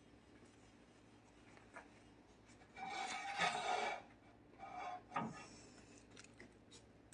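Rubbing and scraping against a greasy dinner plate as it is wiped clean. There is a longer scratchy burst about three seconds in and a shorter one around five seconds, with a few light ticks.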